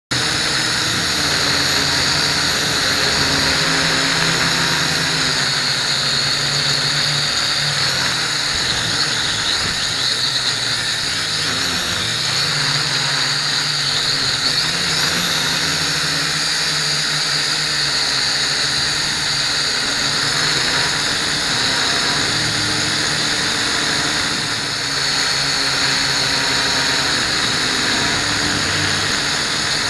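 Blade 180 QX micro quadcopter's motors and propellers whining steadily in flight, the pitch drifting up and down a little with the throttle.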